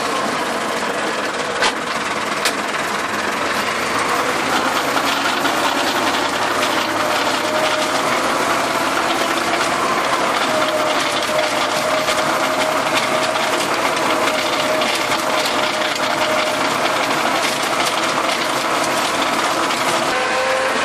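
Small tractor's engine running steadily under load as it pulls a plough through soil, with a light clatter throughout and two sharp clicks about two seconds in.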